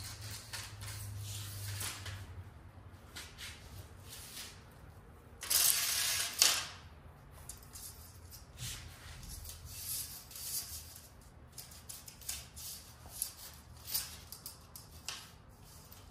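Window-screen mesh rustling and crackling in irregular bursts as it is handled and spread over a screen frame on a concrete floor, with one louder, longer rustle about six seconds in.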